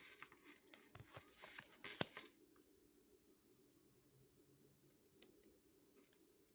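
Oracle cards being handled: about two seconds of rustling and scratching with several clicks, the sharpest about two seconds in, then only faint background.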